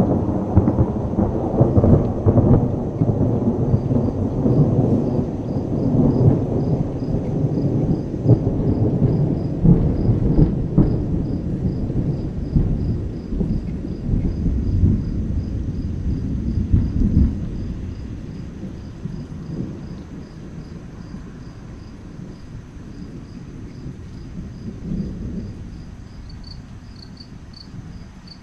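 Rolling thunder: a loud, low rumble that dies away after about 18 seconds, with a fainter rumble near the end. Crickets chirp in a steady, even pulse behind it.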